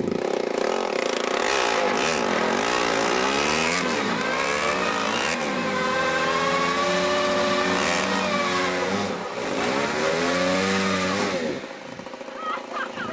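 Motocross bikes revving hard in a burnout, their engines rising and falling again and again with the rear tyre spinning against the wooden deck. The revs drop off briefly near the end, then pick up again.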